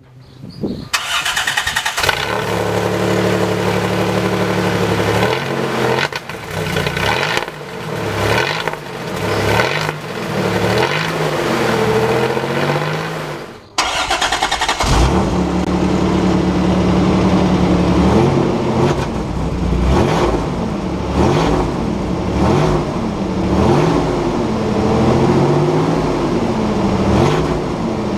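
Toyota Hilux pickup engine running and being revved up and down repeatedly, with the exhaust leaking through holes in the pipe. The sound breaks off briefly about halfway through, then the engine idles and is revved again.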